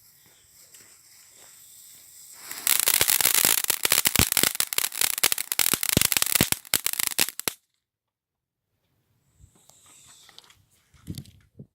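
Small Category 1 firework crackling: a dense, rapid run of sharp crackles for about five seconds that stops abruptly, followed by a few faint knocks near the end.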